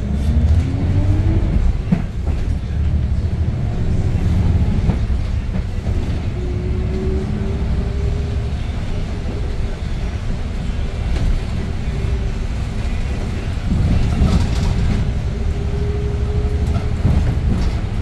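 Cabin sound of a Hyundai New Super Aerocity city bus under way: its C6AF Q290 CNG engine and drivetrain give a loud, steady low rumble. A whine rises in pitch in the first second or so, and a steady whine runs through much of the middle, with a few knocks and rattles.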